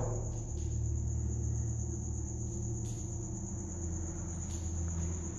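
Steady high-pitched chirring of crickets over a low steady rumble, with a few faint clicks.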